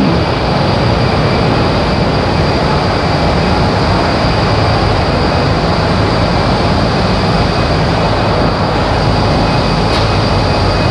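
Olive oil mill machinery running: a loud, steady mechanical drone with a low hum and a thin, steady high whine.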